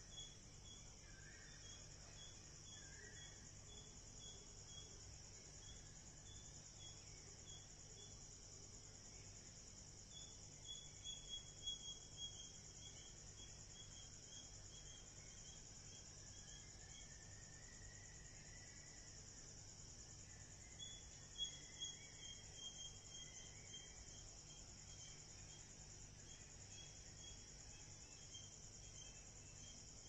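Faint outdoor ambience of insects: a steady high chirring under a run of evenly repeated chirps, which grow louder twice, about a third and two thirds of the way in. A few short calls come near the start, and one slow call rises and falls around the middle.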